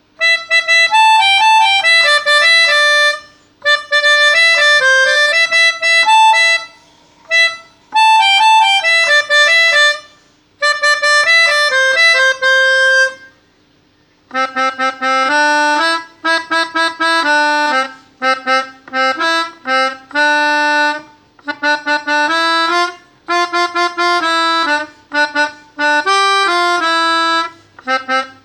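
Pianika (melodica) playing a reedy melody in four short phrases with brief pauses between them, over a faint steady low note. About halfway through it switches to choppier, detached notes with a lower part sounding beneath the tune.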